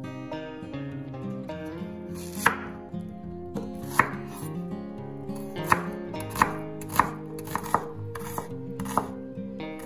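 Chef's knife slicing a red onion on a bamboo cutting board: a series of sharp, irregular knocks of the blade hitting the board, starting about two and a half seconds in. Soft background music plays underneath.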